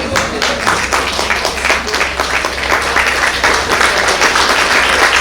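Audience applauding: many hands clapping at once, starting suddenly and growing fuller.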